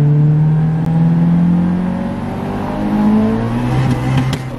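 Car engine accelerating hard under load, heard from inside the cabin: its pitch climbs steadily, dips about two seconds in as it changes gear, then climbs again. A few sharp clicks come near the end.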